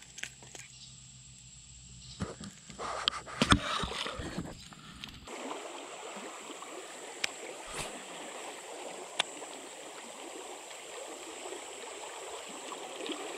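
A few handling clicks and a brief splash of water, then from about five seconds in the steady sound of a fast, shallow river current flowing, with a few sharp ticks over it.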